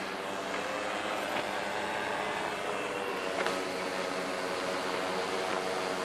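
Electric motors and propellers of an FAE750H hexacopter drone humming steadily as it descends slowly under autonomous control to land.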